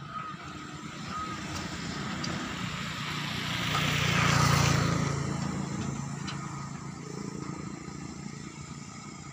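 Tipper lorry's diesel engine and tyres passing by on a dirt track, growing louder to a peak about halfway through and then fading as it drives away.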